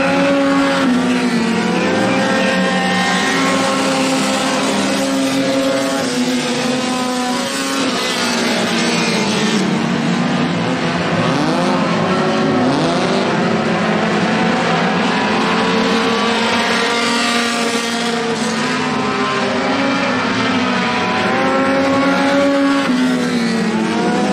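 Several four-cylinder Super 4 dirt-track race cars running at racing speed. Their overlapping engine notes rise and fall as the cars accelerate down the straights and lift off into the turns, with cars sweeping past now and then.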